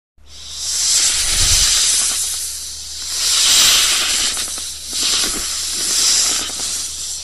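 Snake hissing: loud, breathy hiss in about three long swells that rise and fade, over a faint steady low hum.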